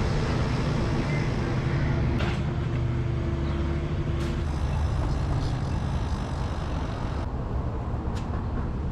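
Road traffic with a heavy vehicle's engine running: a steady low rumble, and an engine hum that stops about four and a half seconds in.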